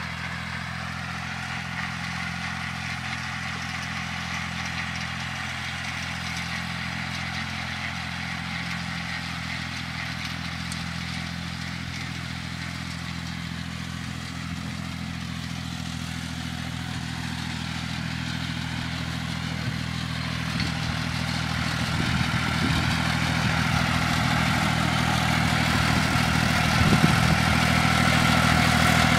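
Fordson Dexta tractor engine running steadily under load while pulling a hay tedder. It grows steadily louder over the last ten seconds or so as the tractor approaches.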